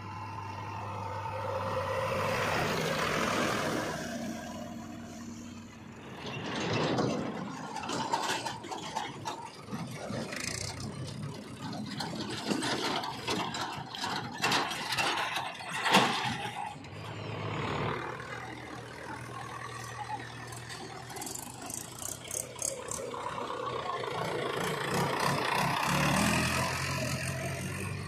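Diesel engine of a JCB 3DX backhoe loader running as the machine drives up, growing louder and then fading. After that come irregular clanks and rattles from steel tractor trolleys over running engines, with one sharp knock the loudest, about sixteen seconds in.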